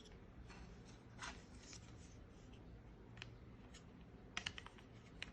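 Near silence with a low steady hum, broken by a few faint clicks about a second in and a quick run of small clicks near the end.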